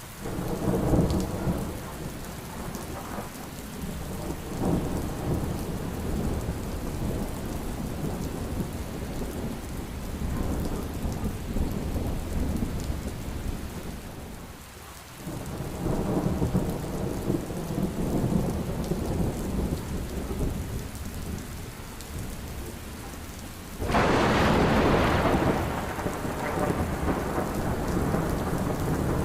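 Heavy rain falling steadily, with rolling thunder: a rumble right at the start, another about halfway through, and a louder, sudden one near the end.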